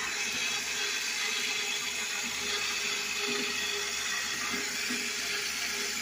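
Electric gear-reduction drive motor of a sawmill carriage whirring steadily as its sprocket drives the carriage along a number 40 roller chain.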